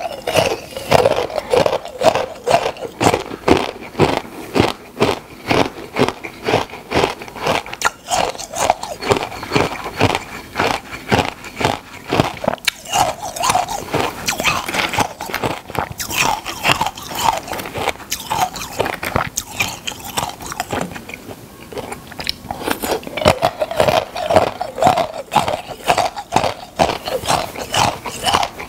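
Close-miked crunching bites and chewing of a hard, brittle food: a rapid, continuous run of sharp crunches, several a second.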